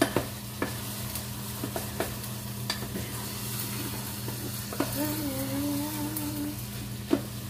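Food sizzling in a pan as a utensil stirs it, with scattered sharp clicks of the utensil against the pan, over a steady low hum.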